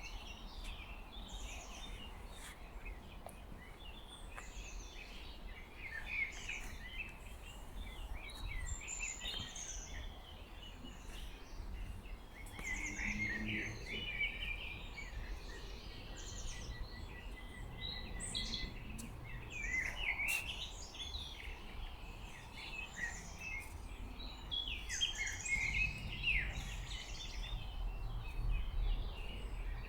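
Several songbirds singing and chirping at once, with a rapid trill of even notes about halfway through, over a steady low rumble.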